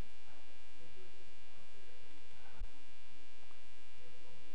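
Steady electrical mains hum on the recording, with a faint, distant voice of an audience member asking a question off the microphone. A brief low thump comes about halfway through.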